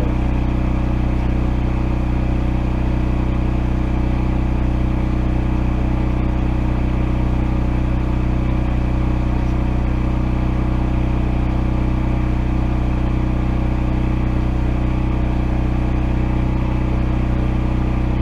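Hobart Champion 145 engine-driven welder's gasoline engine running at a steady speed.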